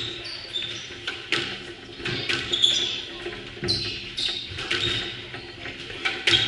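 Squash rally: the ball cracks off rackets and the front wall about once a second, each hit ringing briefly in the enclosed court, with rubber-soled shoes squeaking on the wooden floor between shots.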